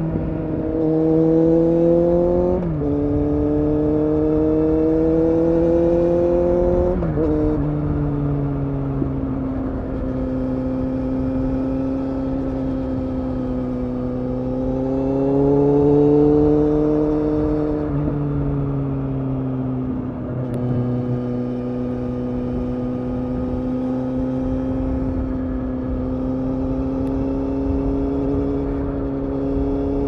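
2015 Kawasaki Z800's inline four-cylinder engine through an Akrapovič exhaust, accelerating with two upshifts in the first eight seconds: the revs climb and drop sharply at each shift. It then cruises at fairly steady revs, picking up briefly in the middle and easing back again.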